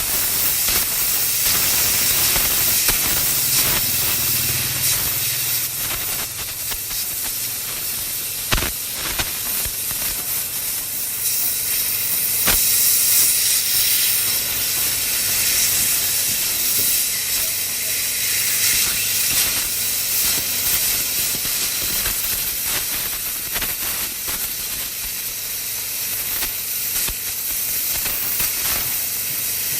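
Plasma cutter torch giving a loud, steady hiss of air, with two sharp clicks about eight and twelve seconds in.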